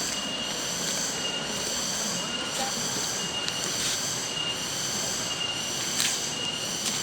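Steady rush of a waterfall, with a high shrill drone pulsing evenly over it and a few sharp clicks.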